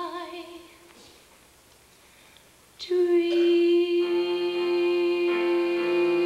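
A female solo voice ends a held sung note with vibrato, then there is a short near-quiet pause. About three seconds in, a loud, steady sustained chord enters, and lower notes join it about a second later.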